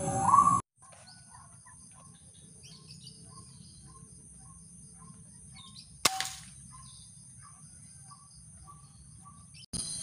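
A single sharp crack of an air rifle shot about six seconds in, against faint chirping calls repeated about twice a second over a steady high whine.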